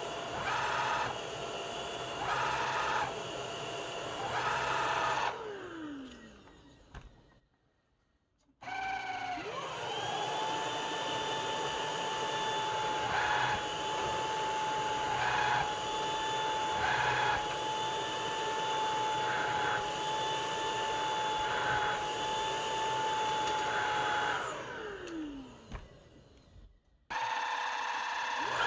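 Cordless stick vacuum cleaner's motor running with a steady high whine. It winds down to a stop about six seconds in, then is switched back on and spins up to a higher-pitched steady whine. Near the end it winds down again and restarts.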